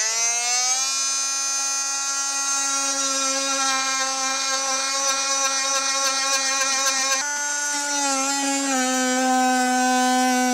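Cordless oscillating multi-tool running at full speed, its blade cutting a vent hole through wall siding: a loud, steady, high buzzing whine. The pitch shifts slightly about seven seconds in.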